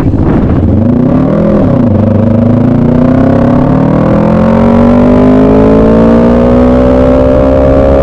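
Engine of a vehicle lapping a race track: its pitch swells and drops briefly around a second in, then climbs steadily through the rest as it accelerates out of the corner.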